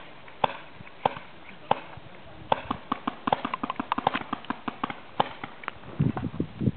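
Paintball markers firing: single sharp pops about every half second or so, then a rapid flurry of shots about two and a half seconds in. Near the end a low rumble of handling noise comes in as the camera is moved.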